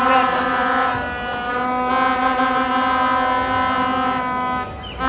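A hand-held plastic horn of the vuvuzela kind, blown in long steady blasts on one low note. There is a short break about a second in, and the blast stops shortly before the end. Crowd noise from the protest runs underneath.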